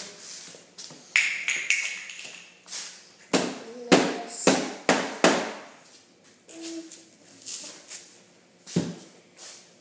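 Stainless steel water bottle knocking and thudding against a tabletop as it is pressed and rolled over play-doh to flatten it: a string of sharp, uneven knocks, the loudest in a cluster around the middle, and one more near the end.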